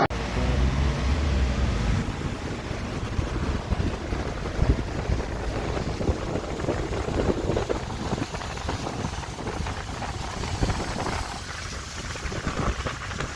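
A vehicle moving through deep floodwater, with water rushing and splashing around it the whole time.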